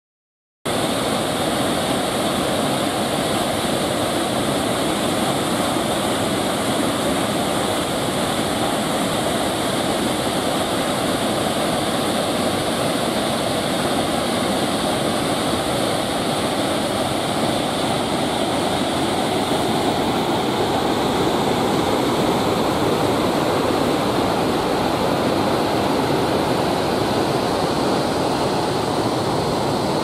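Multi-tiered waterfall pouring over stepped rock ledges: a steady, loud rush of falling water that starts just under a second in.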